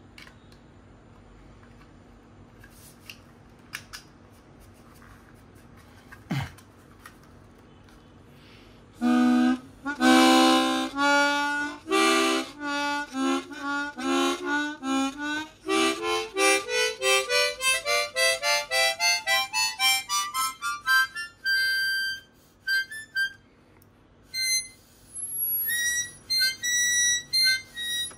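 A few faint handling clicks, then a Kongsheng KB-12 chromatic harmonica played: some held chords, then single notes stepping up a scale at about three notes a second, ending on short high notes with gaps between them.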